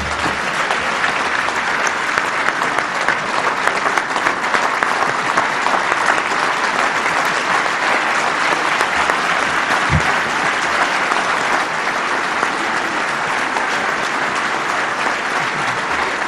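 A large audience applauding steadily, a long sustained ovation.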